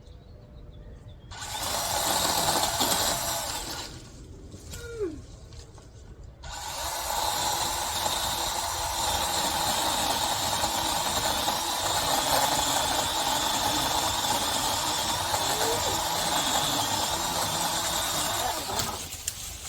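Chainsaw cutting tree branches: a short cut of about two seconds, then after a pause a long steady cut of about twelve seconds that stops near the end.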